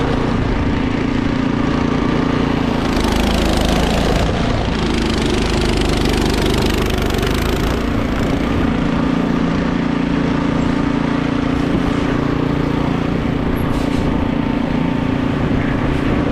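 Pickup truck engine running steadily, a constant low hum with road or fan noise over it.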